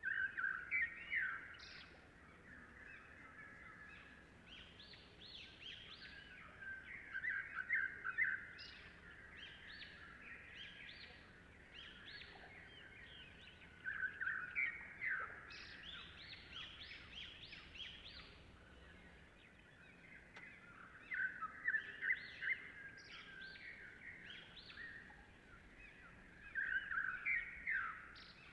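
Birds chirping in clusters of quick, high notes that come back about every six to seven seconds, with faint background hiss between them.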